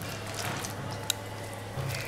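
Thick masoor dal batter with chopped onion being mixed with a spoon in a steel bowl: soft squelching, with one sharp clink about a second in.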